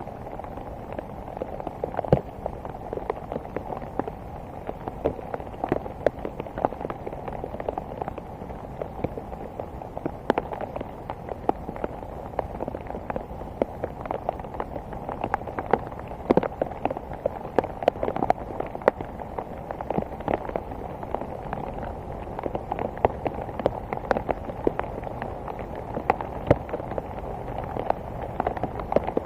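Rain pattering on a hard surface: a dense, irregular patter of drops with sharper, louder taps scattered throughout.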